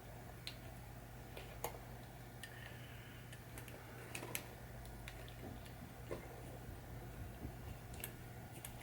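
Faint, scattered clicks and light taps of a screwdriver and screw against the pinball drop-target bracket as the screw is worked into place, over a steady low hum.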